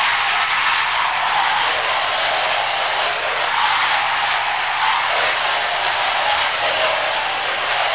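Radio-controlled AE86 drift car's electric motor and drivetrain whirring as it drives across the floorboards, the pitch rising and falling with the throttle.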